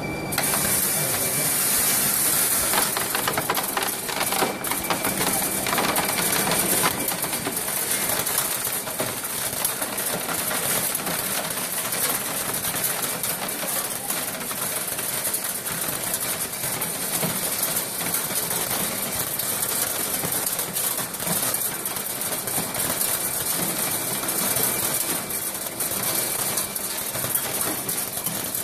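Meyer optical colour sorter running: a dense, steady rattle of material streaming down the chutes, with rapid clicking from the air-jet ejector valves. A high air hiss is loudest in the first few seconds, then eases.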